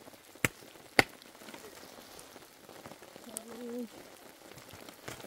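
Rain pattering, with two sharp knocks about half a second apart near the start and a brief low voice-like sound about three and a half seconds in.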